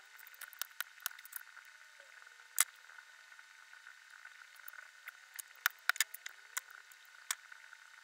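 Small sharp clicks of hard plastic model-kit parts being cut from the sprue with a hobby knife and pressed together by hand, scattered irregularly with a louder click about two and a half seconds in and a quick cluster around six seconds, over steady recording hiss.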